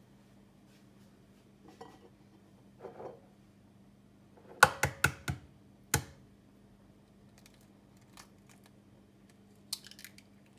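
An egg tapped sharply against the rim of a glass bowl to crack it: four quick taps a little under five seconds in, then one more a second later. Lighter crackles of eggshell near the end as the shell is pulled apart.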